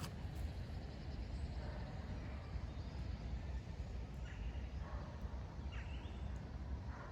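A few short, faint bird calls over a steady low rumble on the microphone, heard outdoors by a lake.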